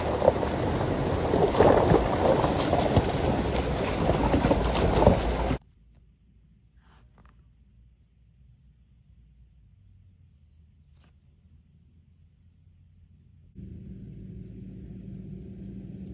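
Loud rushing wind noise buffeting the microphone, which cuts off suddenly about five and a half seconds in. A quiet stretch follows, with a cricket chirping at an even pace, a few chirps a second. Near the end the steady low hum of a vehicle engine comes in.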